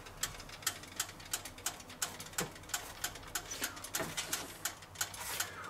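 Irregular sharp crackles and pops, several a second, from the hot ribbed plates of a Tefal OptiGrill Elite contact grill with burger buns toasting on them.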